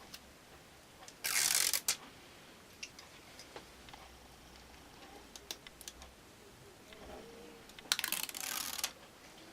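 Light clicks and taps of small-parts handling on a tablet repair bench, broken by two short, loud hissing noise bursts, one about a second in and one near the end.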